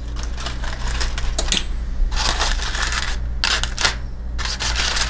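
Aluminium foil crinkling and crackling in irregular bursts as a sealed foil packet over a baking sheet is pulled open by hand.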